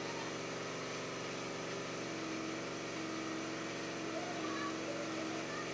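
A steady motor hum that keeps one unchanging pitch throughout.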